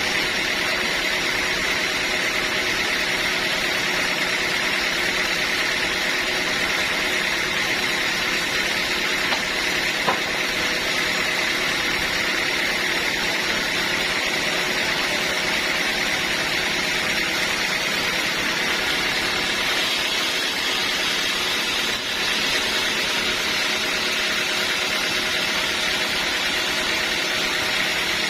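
Sawmill saw running steadily, a continuous machine noise with a steady high whine.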